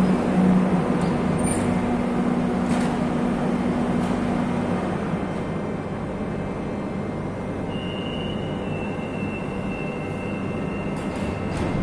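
Madrid Metro train running, a steady dense noise that slowly grows quieter. A low hum fades out in the first few seconds, and a thin high whine comes in about eight seconds in.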